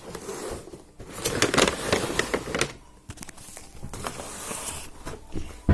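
Cardboard packaging being opened by hand: rustling and scraping in two long stretches, with scattered clicks and a sharp click near the end.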